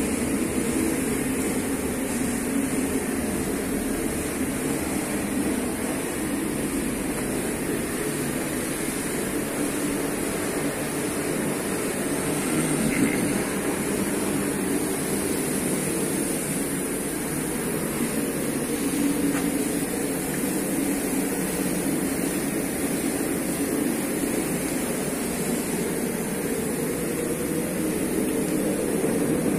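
Steady drone of workshop machinery with a high hiss over it.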